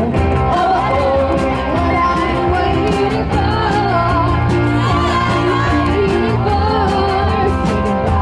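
A live rock band performing with a singer over electric guitar, bass and a steady, driving drum beat, heard in a large hall.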